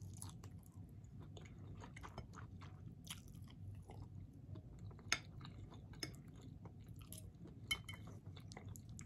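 A person chewing a mouthful of green beans: quiet, steady mouth sounds with many small wet clicks and a couple of sharper clicks about five seconds in and near the end.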